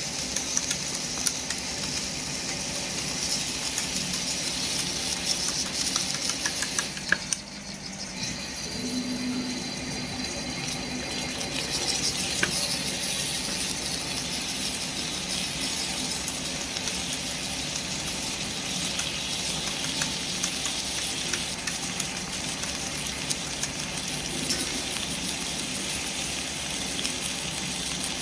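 KTK drilling machine running, a steady hiss with scattered small clicks and rattles of metalworking. The sound dips briefly about seven seconds in, then carries on as before.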